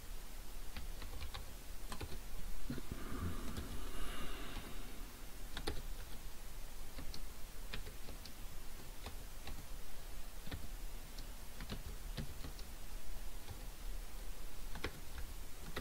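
Computer keyboard being typed on: short, uneven runs of key clicks with pauses between them.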